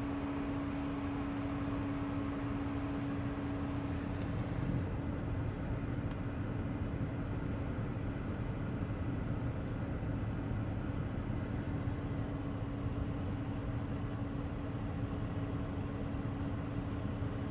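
Steady low rumble with a constant hum, fading about five seconds in and returning near the end.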